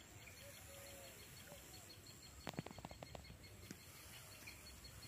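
Quiet rural open-air ambience: faint distant bird calls repeating, over a faint steady high ticking. About halfway through comes a quick rattle of clicks lasting under a second.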